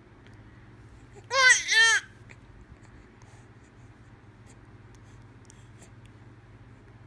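Baby's high-pitched vocal sound, two quick syllables that each rise and fall in pitch, about a second in.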